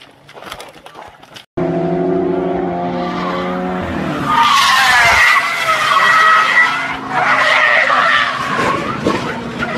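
A few short knocks and scrapes in the first second and a half. Then a car engine runs at steady revs, and from about four seconds in, tyres squeal loudly and unevenly as the car skids, for about five seconds.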